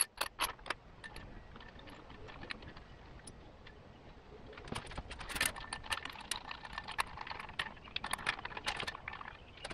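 Small metal clicks and clinks of rocker-assembly bolts being handled and set into the rocker shaft of a Subaru 2.5L single-cam cylinder head. A few sharp clicks at the start, then a busier run of clinks through the second half.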